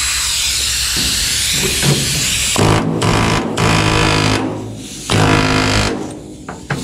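Central Pneumatic air hammer with a flat chisel bit, first a steady hiss of air, then firing in several short buzzing bursts from about two and a half seconds in as it chisels through the spot welds joining an old floor-pan band to the rocker panel.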